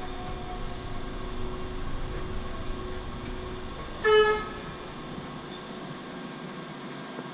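Steady hum and low rumble inside an electric bus's cabin, with one short horn toot about four seconds in. The low rumble drops away near the end.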